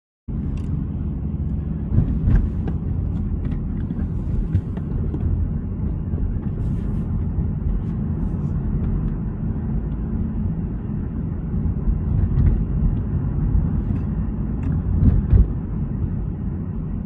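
Car interior noise while driving: a steady low rumble of engine and tyres on the road heard from inside the cabin, with occasional short clicks and knocks.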